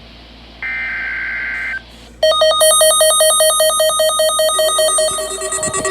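Emergency Alert System signal tones from a weather-radio alert: a steady electronic tone about a second long, then a short gap, then a loud, rapidly pulsing electronic alert tone at about eight pulses a second.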